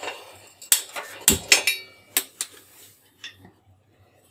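Iron tawa clanking against a gas stove burner as it is set in place: several sharp metal knocks, the heaviest a little over a second in.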